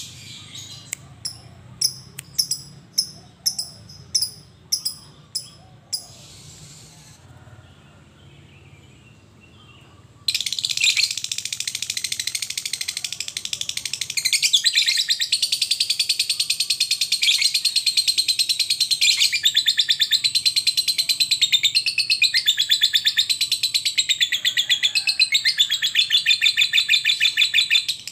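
A lovebird giving short sharp chirps about twice a second, then, after a brief pause, a long unbroken rapid chattering trill, the 'ngekek' that keepers prize, from about ten seconds in, growing louder a few seconds later.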